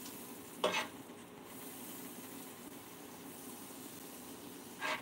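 Butter sizzling steadily in a skillet as grilled cheese sandwiches fry, with two short strokes of a utensil against the pan, one under a second in and one near the end.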